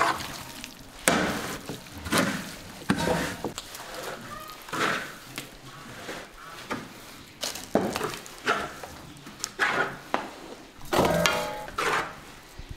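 A wooden-handled tool scraping and knocking against a stone trough as a mash of bran and chopped greens is mixed for animal feed, in irregular strokes about once a second.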